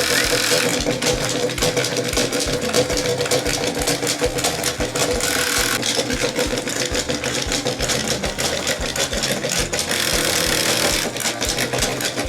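Small electric motor and plastic gears of a battery-powered Chubby Puppies walking toy running, with a quick, even clicking as the toy waddles along.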